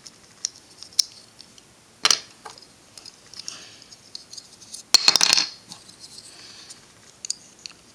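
Hard plastic pieces of a disassembled Rubik's 2x2x4 cube clicking and clattering as they are handled and fitted together. There are scattered light clicks, a clatter about two seconds in, and a louder burst of clicks about five seconds in.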